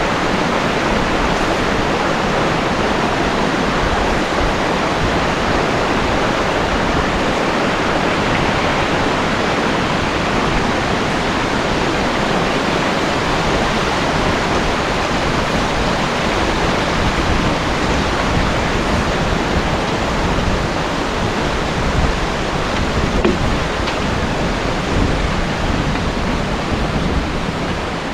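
Peguche waterfall: a steady, loud rush of falling water.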